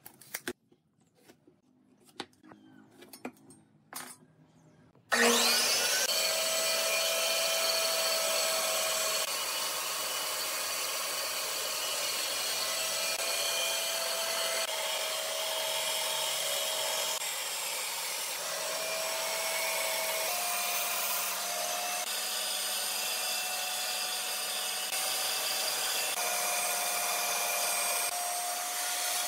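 A few sharp clicks and taps, then about five seconds in a band saw cutting lengthwise through a thick wooden block: a loud, steady run of blade through wood with a constant whine from the machine.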